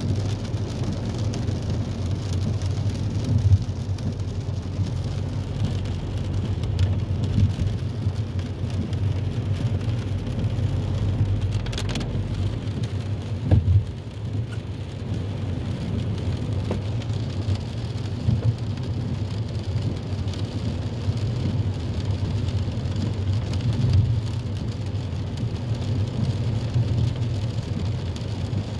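Steady low rumble of a car driving on a wet road, heard from inside the cabin, with rain pattering on the windscreen and a few soft knocks.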